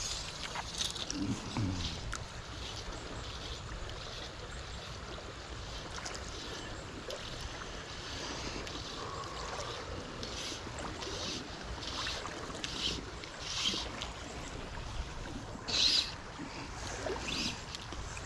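Creek water running steadily, with a short rasping swish every second or so from fly line being stripped in by hand through the rod guides.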